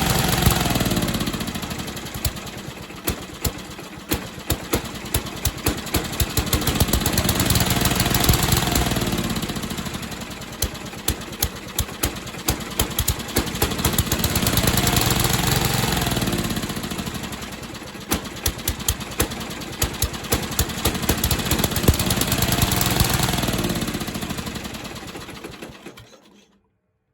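Riding lawnmower engine running rough and hunting: its speed surges up and falls back about every seven seconds, with rapid popping at each low point. It stops abruptly near the end. This surging is typical of a carburetor fault in a flooded mower engine.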